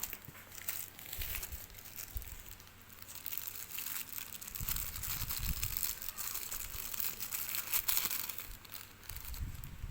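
Packaging crinkling and rustling in irregular crackles as it is handled and unwrapped, with a few soft low bumps about halfway and near the end.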